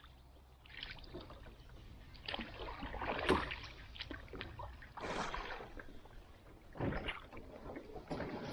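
Canoe paddle strokes in calm creek water: paddle blades dipping, pulling and splashing in uneven surges every second or two, with water dribbling between them. There is one sharp knock a little before the middle.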